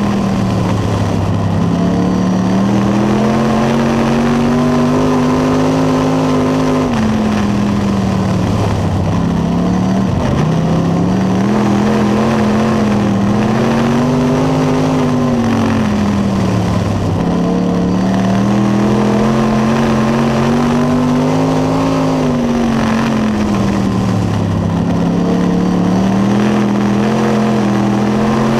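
Dirt late model race car's V8 engine at racing speed, heard from inside the cockpit. The engine pitch climbs, holds, then drops sharply, four times, as the driver goes on the throttle down the straights and lifts for the corners.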